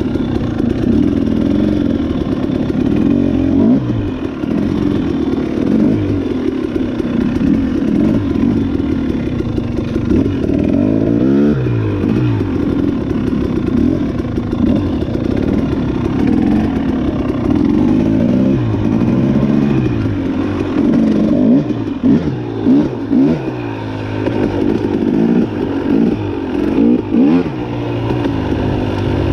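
Off-road dirt bike engine being ridden hard, its pitch repeatedly rising and falling as the throttle opens and closes. In the later part it comes in short on-off throttle blips.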